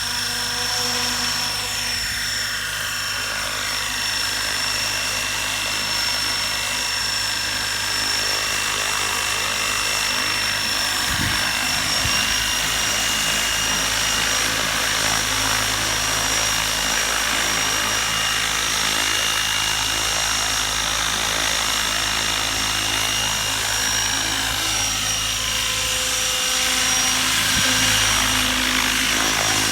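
Electric 12-cell RC helicopter flying, its motor and gears giving a steady high whine over the rotor, with wind buffeting the microphone.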